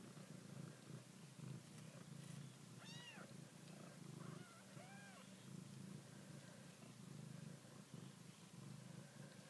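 Mother cat purring faintly and steadily while tending her newborn kittens, with a few short, high-pitched mews about three and five seconds in.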